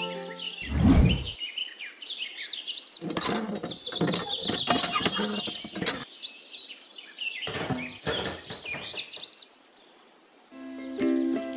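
Birds chirping repeatedly. A dull thump comes about a second in, then scattered clicks and knocks. Music starts again near the end.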